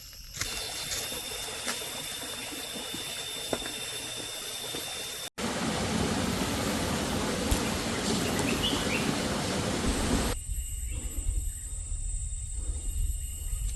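Tropical jungle ambience in three cut shots. First comes a steady hiss with high, steady tones, then a louder, fuller rushing noise, then a low rumble under a steady high whine.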